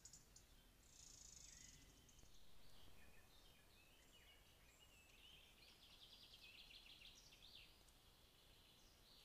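Faint songbird calls and chirps over a low hiss, with a rapid trill about five seconds in.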